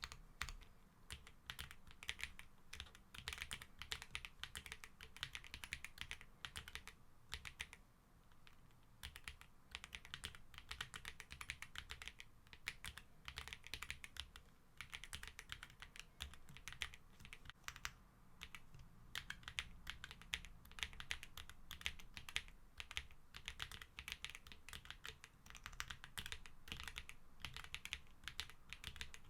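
Typing on a Graystudio Space65 R3 mechanical keyboard with G-Square White Knight switches: a steady run of keystroke clacks with short pauses around eight and eighteen seconds in.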